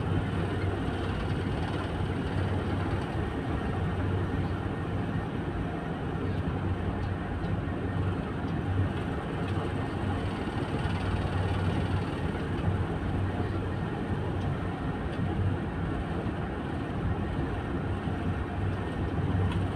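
Tugboat's diesel engines running steadily with a low hum, heard from inside the wheelhouse while the tug pushes its bow against a tanker's hull.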